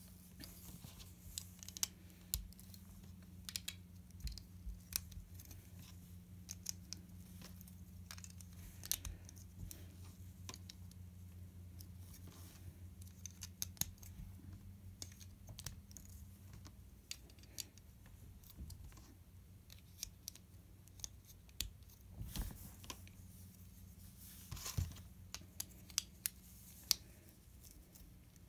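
Plastic LEGO bricks and plates clicking and tapping in irregular sharp clicks as they are handled and pressed together.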